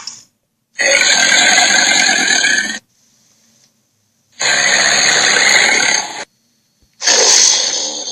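Giant-creature sound effect: three loud calls, each about two seconds long and dense across low and high pitches, separated by short silences.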